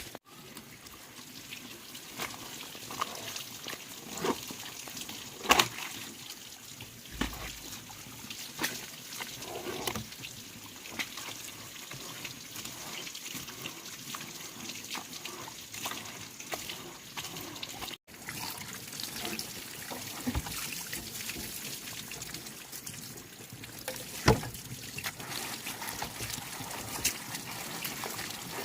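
Liquid trickling steadily, with scattered small clicks and a few sharp knocks, the loudest about five seconds in and again near the end.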